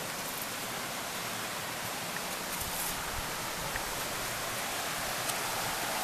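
Steady rushing of falling water from a waterfall and its stream, an even hiss that grows slightly louder.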